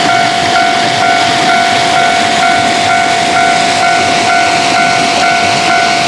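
Japanese railway level-crossing alarm ringing, its electronic bell repeating about twice a second over a steady tone, with an even hiss behind it.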